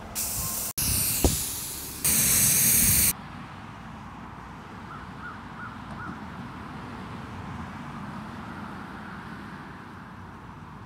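Aerosol spray paint can spraying, a loud hiss in a few bursts over about three seconds. Then quiet outdoor background with a few faint high chirps.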